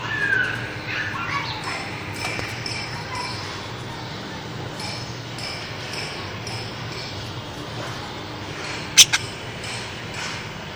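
Pet lovebirds chirping: rising and falling calls in the first two seconds, then shorter high chirps repeating. Two sharp clicks close together, about nine seconds in, are the loudest sound.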